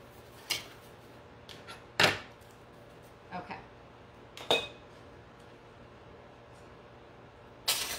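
Objects being handled and set down on a wooden worktable: a few separate knocks and clacks, the loudest about two seconds in, with a brief rustle near the end.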